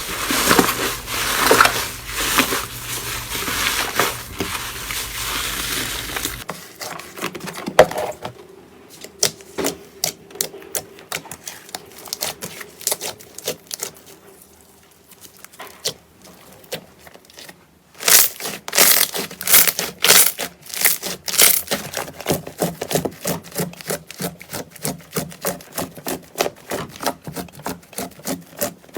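Slime being squished and worked, crackling and popping with runs of sharp clicks. The sound changes abruptly about six seconds in and again about eighteen seconds in, from a dense crackle to sparser clicks and then to a fast run of pops.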